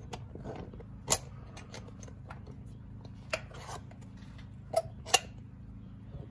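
Scattered metallic clicks and clinks of a ratchet and socket working the rear bolt of a 1969 Pontiac Firebird's hood hinge as it is loosened, at irregular intervals, the sharpest about a second in and near the end, over a steady low hum.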